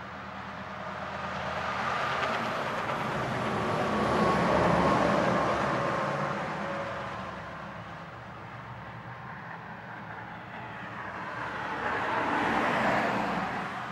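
Highway traffic passing: tyre and engine noise swells to a peak about four to five seconds in, then fades. It swells again near the end as another vehicle goes by, with a slight fall in pitch as each one passes.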